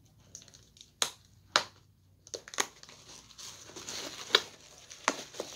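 A cardboard shipping box being opened by hand after its tape is slit with a screwdriver: tape and cardboard tearing and crinkling, with several sharp snaps.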